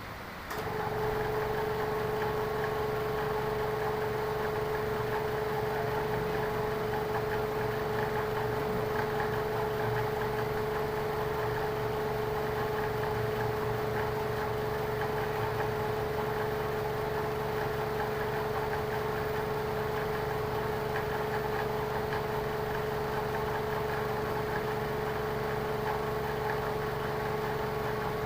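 Lexus car engine idling steadily, with a strong steady whine over its low running sound. The sound comes on abruptly about half a second in.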